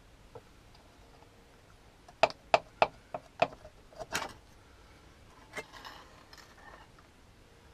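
Sharp clicks and knocks from parts being handled on a motorcycle engine's side cover: about five in quick succession a couple of seconds in, then a few more and a brief rustle.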